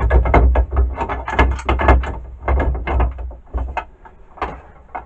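Aluminium headstock of a Black & Decker D-994 lathe attachment being slid back onto its alloy bed: a rapid run of metal clicks and scrapes, louder for the first three seconds and fainter after.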